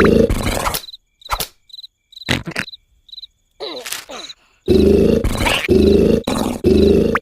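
Cartoon snoring sound effect: loud snores, then a quieter stretch of about three and a half seconds with short high cricket chirps and a few sharp knocks. The loud snores then resume, about one a second.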